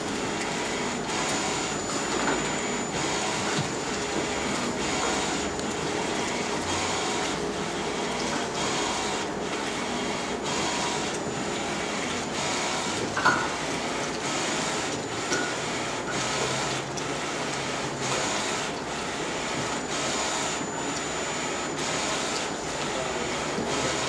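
Flatbed digital T-shirt printer running, its printhead carriage shuttling back and forth over the garment with a steady whir that dips rhythmically about once a second, and a faint high-pitched whine that comes and goes. A single brief knock about halfway through.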